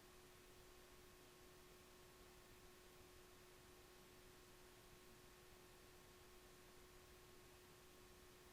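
Near silence: a faint steady hum with a constant low tone over light hiss.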